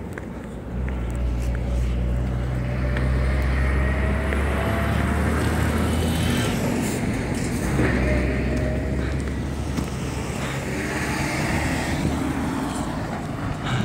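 A motor vehicle engine running steadily at low revs. It comes in about a second in.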